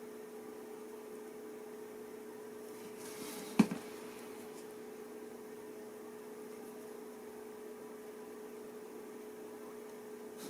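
Steady electrical hum of two even tones, with a single sharp knock about three and a half seconds in.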